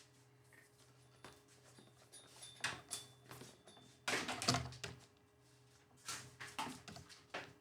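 Scattered clicks, knocks and rustles of electronic equipment and cables being handled, the loudest cluster a little after four seconds in, over a faint steady electrical hum.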